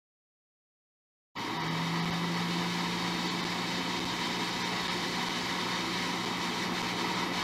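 Hot air rework station blowing, a steady hiss with a low hum, starting about a second in; it is reheating the solder on the charging port joints.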